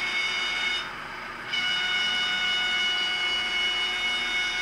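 Digital sound of an ACME E444R model electric locomotive played through its small on-board speaker: a steady high-pitched electronic tone that breaks off briefly about a second in, then resumes.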